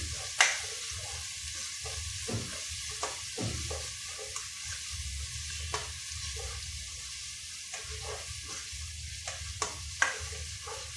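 Chopped onion and ginger sizzling in hot oil in a pot while being stirred with a spatula, which knocks and scrapes against the pot now and then. The sharpest knocks come about half a second in and near the end.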